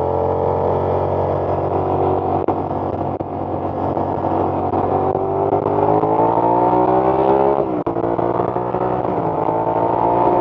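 Suzuki SV650's V-twin engine, fitted with a shorty Hindle exhaust, running under way. The engine note climbs steadily as it accelerates, drops sharply at a gear change about eight seconds in, then climbs again.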